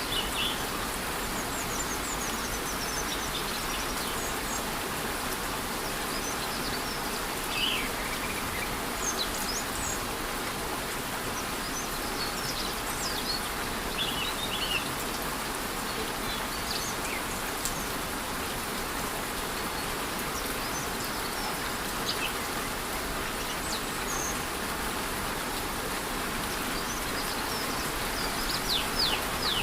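Steady rush of a waterfall in light rain, with birds giving short, scattered high chirps throughout.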